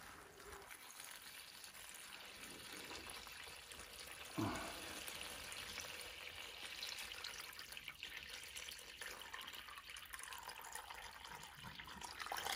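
Water pouring steadily from a large plastic bottle into a collapsible nylon bowl, splashing onto the fabric liner and the rising water, with one brief louder moment about four and a half seconds in.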